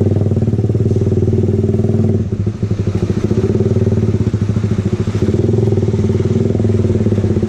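Suzuki motorcycle engine running at low speed through a Hi Speed aftermarket muffler, a steady, rapidly pulsing exhaust note that eases off briefly about two and a half seconds in.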